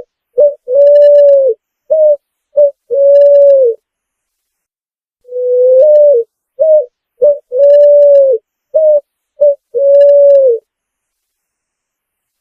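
Picazuro pigeon cooing: low hooting phrases of long held coos alternating with short clipped notes. One phrase ends, and after a pause of about a second and a half a full phrase begins with a long rising coo.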